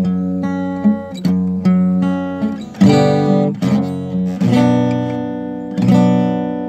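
Fender steel-string acoustic guitar played with the fingers: picked and strummed chords, each struck chord ringing out and fading before the next, with the strongest strums about three and six seconds in.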